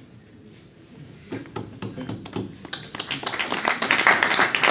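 Audience applauding: a few scattered claps about a second in, building into full applause near the end.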